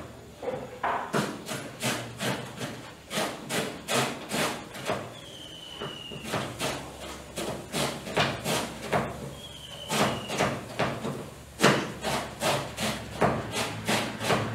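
Kitchen knife chopping a cabbage, the blade knocking down onto the surface below in a quick, irregular series of two or three strokes a second, with a few short pauses.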